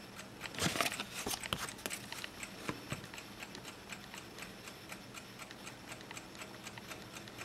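A clock ticking quickly and evenly. In the first couple of seconds a few brief rustles of paper are heard as the small receipts are handled.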